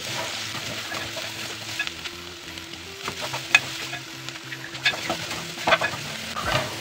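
Sliced onions sizzling in hot oil. A wooden spoon stirs beef in a metal pot, scraping and knocking against the metal several times.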